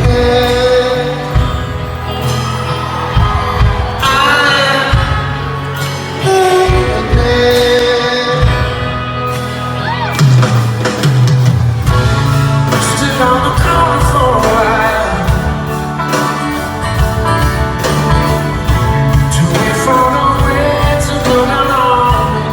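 Live band playing a slow rock song: a male voice singing over guitar, bass and drums.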